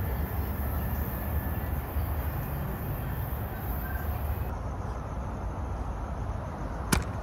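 Low, steady rumble of a train approaching in the distance. About four and a half seconds in it gives way suddenly to quieter outdoor background, and a single sharp click comes near the end.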